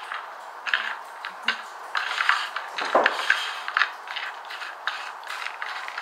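Sunflower seeds in the shell being cracked open between the teeth and chewed: a string of sharp, irregular cracks and crunches.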